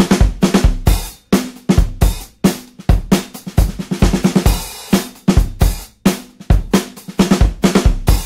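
Background music: a steady drum-kit beat with bass drum, snare and cymbals.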